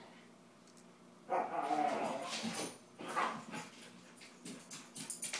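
Huskies vocalizing as they play-fight: a long pitched call starting about a second in, then a shorter one about three seconds in.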